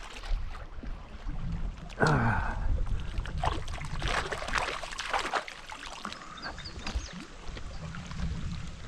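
Wind buffeting the microphone, with water sloshing and splashing. About two seconds in, a short pitched sound, falling in pitch, cuts in.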